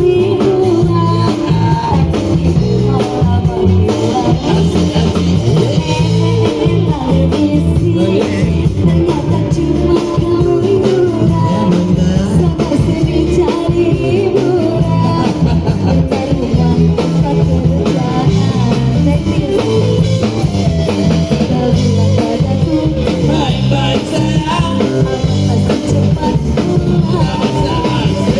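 A Chinese song playing: a voice singing over guitar and drums with a steady beat.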